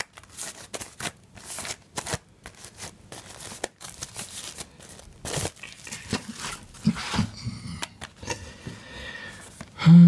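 Plastic shrink-wrap being peeled off a Blu-ray digipak and crinkled, with scattered crackles and rustles as the card case is handled. A short, loud, low sound comes near the end.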